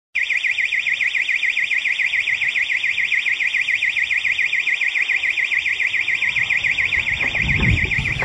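Intruder alarm sounder going off: a loud, high-pitched tone warbling rapidly up and down, starting abruptly and holding steady. A low rumble rises under it near the end.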